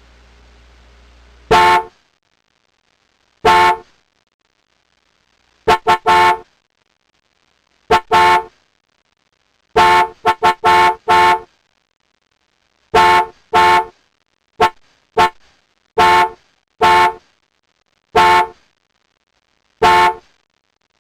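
Car horn honking in a long series of short beeps, some single and some in quick runs of two or three, with pauses of one to two seconds between them.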